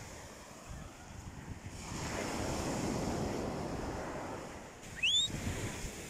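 Surf washing onto a sandy beach, with wind buffeting the microphone; the wash swells about two seconds in. Near the end comes a brief high whistle that rises in pitch, the loudest sound here.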